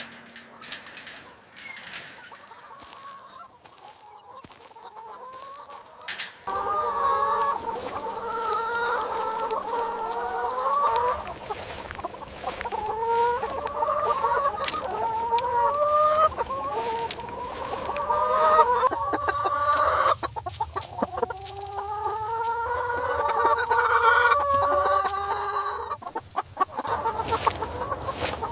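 A flock of chickens clucking and calling, many birds overlapping, starting about six seconds in after a quieter opening.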